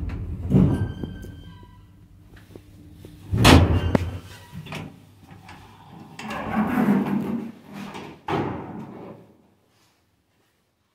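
Doors of a 1990 ZREMB passenger lift working: a thud with a brief ringing tone about half a second in, a loud bang a few seconds in, a longer rattling slide around the middle, and a second bang near the end.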